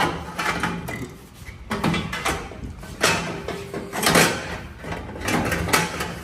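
Long-tube headers scraping and clunking against the frame and engine as they are worked into place, in about five irregular bursts of scraping with knocks.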